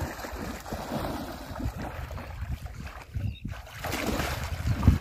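Wind buffeting the microphone outdoors: an uneven low rumble under a rushing hiss that swells about four seconds in.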